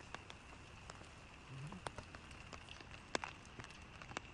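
Light rain falling, a faint steady patter with scattered single drops ticking sharply.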